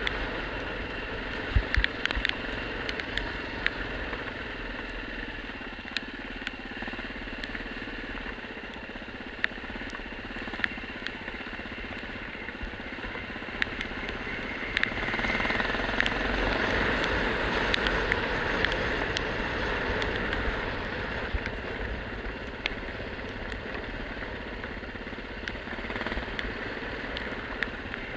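Yamaha XT600 single-cylinder engine running on a gravel track descent, with the rumble of the tyres on gravel and frequent sharp clicks and knocks from stones and the bumpy surface. The sound grows louder for several seconds from about halfway through.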